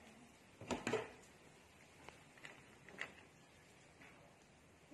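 Light plastic clicks and knocks from parts being handled inside an opened Epson L3210 ink tank printer, at the print head carriage: a short cluster of knocks about a second in, then a few faint clicks around two and three seconds.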